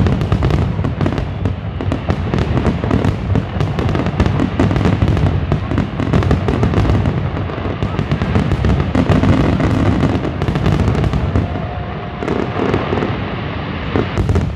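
A fireworks display: a dense, unbroken barrage of aerial shell bursts, booms and crackling, overlapping with no let-up.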